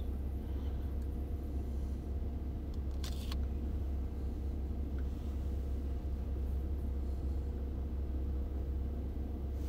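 Steady low hum in a kitchen, with a single short click about three seconds in.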